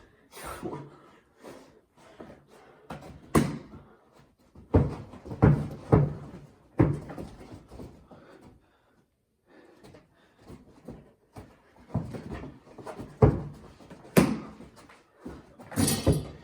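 Basketball being played indoors: a series of irregular sharp thuds and knocks as the ball bounces on the floor and strikes the hoop and the hard surfaces around it, with a brief quiet pause about halfway through.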